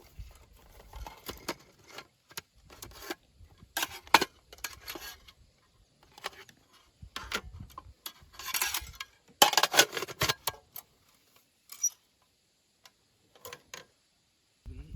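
Irregular clicks, light rattles and rustling of objects being handled, with louder rustling bursts about four seconds in and again around nine to ten seconds.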